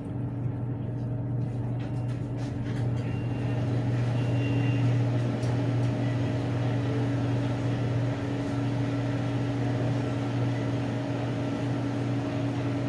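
Steady low hum of a BTS Skytrain car standing at a station platform, its onboard equipment running, with a few faint clicks in the first few seconds.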